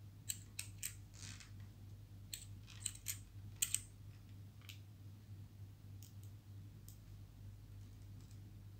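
Faint, scattered small clicks and ticks of a hard disk platter being seated on the spindle of an opened 2.5-inch laptop hard drive and handled into place, over a low steady hum.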